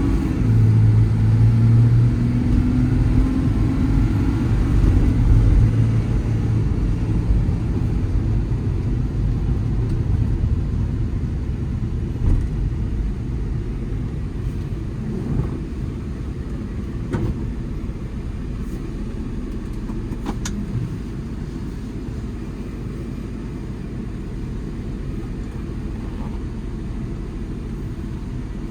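2015 Ram 5500's 6.7 Cummins diesel and road noise while driving. Over the first few seconds the engine note climbs as the truck pulls, then it settles into a steady drone that slowly gets quieter, with a few light knocks along the way.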